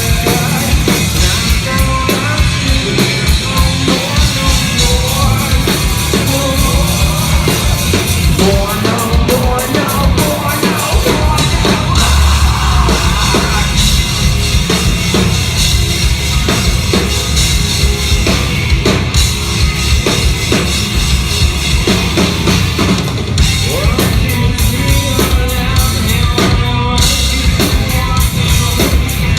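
Metal band playing live and loud: distorted electric guitars, bass and a pounding drum kit.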